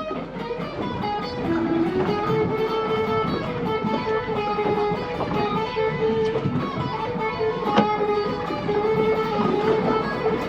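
Background music led by plucked guitar, with steady note patterns and strummed chords.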